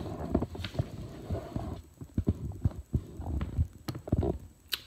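Handling noise from a phone being moved by hand and set in place: irregular low thumps and rumbles, with a couple of sharp clicks near the end.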